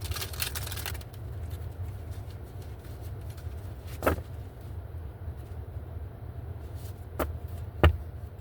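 Oracle cards being handled: a short papery rustle at the start, then three sharp taps of the deck or cards on the table, the last one loudest, over a steady low hum.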